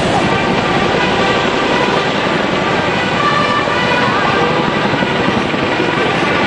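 Helicopter running with a loud, steady roar. From about two seconds in, faint sustained bugle notes of the bugle corps' entry march sound over it.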